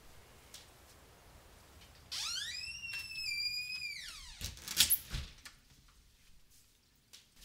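A door's hinges squeal for about two seconds, rising, holding and then falling in pitch, followed by a few heavy thuds as the door shuts.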